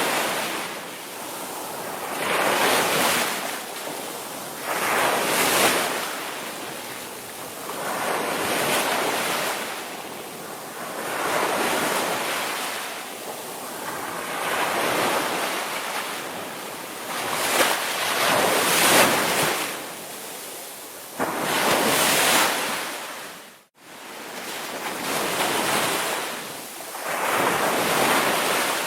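Indian Ocean surf, waves breaking and washing in one after another, each surge swelling and fading every few seconds. About two-thirds of the way through, the sound drops out for an instant, then resumes.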